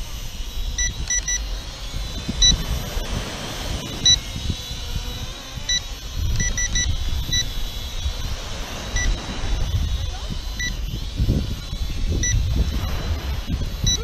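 Short high electronic beeps from the Eachine E58 drone's controls, some single and some in quick runs of three, marking speed-mode switches; a quick triple beep means the fastest, third mode. Under them, wind buffets the microphone with a steady low rumble.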